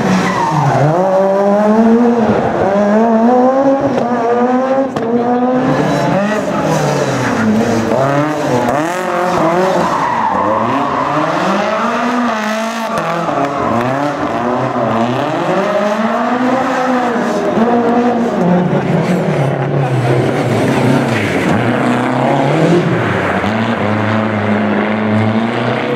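Rally car engine revved hard and let fall again and again, its pitch rising and dropping every second or two, with tyres squealing as the car drifts.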